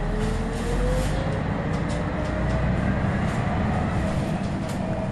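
Scania L113CRL bus's rear-mounted 11-litre six-cylinder engine and driveline running under way, heard from inside the passenger saloon. A whine rises in pitch over about the first second and then holds, with light interior rattles throughout.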